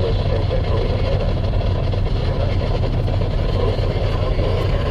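Steady road and engine noise heard from inside a moving car's cabin, a low, even rumble with no distinct events.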